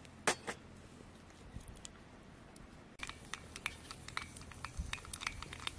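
Mustard and cumin seeds frying in hot oil in a small steel bowl for a tadka: a couple of pops in the first second, then from about halfway a dense run of irregular crackles and pops as the mustard seeds start to splutter, the sign that the oil is hot enough and the seeds have crackled.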